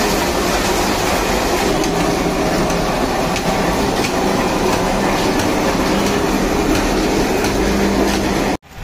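Mango pulping machine running with a loud, steady mechanical clatter and hum as pulp pours from its steel chute into a steel vessel. The sound breaks off abruptly near the end.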